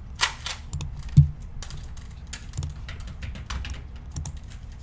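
Computer keyboard keys clicking irregularly, with a soft low thump about a second in.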